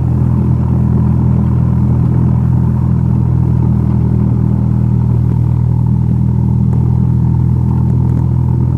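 Light airplane's piston engine running steadily at taxi power, a constant low drone with no change in pitch.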